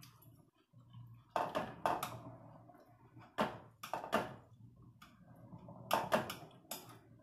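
Metal spoon clinking against a ceramic soup plate: about nine sharp clinks, several in quick pairs.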